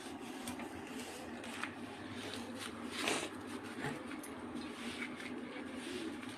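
Hands rubbing and crushing a fire-scorched leaf to squeeze out its juice: faint rustling with small clicks, and a louder rustle about three seconds in.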